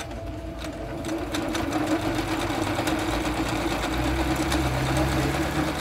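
Jaguar CD-2205MP computerized sewing machine running steadily as it stitches a decorative embroidery pattern, a motor hum under a rapid, even needle clatter.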